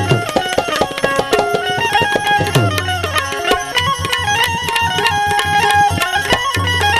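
Instrumental interlude of a Gujarati bhajan: tabla playing a dense rhythm, its bass strokes sliding down in pitch twice, under a melody of held notes.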